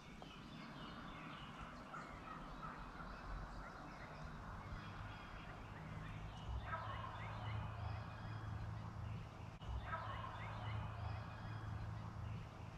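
Wild turkey gobbler gobbling twice, about six and a half and ten seconds in, each gobble a quick rattling run of notes.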